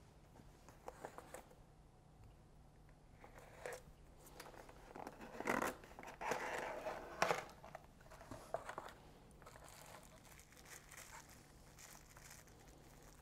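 A cardboard mailer box being opened by hand. Light scuffs and taps come first, then rough tearing noise as the box is pulled open, the loudest part, about halfway through. Near the end a bubble-wrap bag crinkles as it is lifted out.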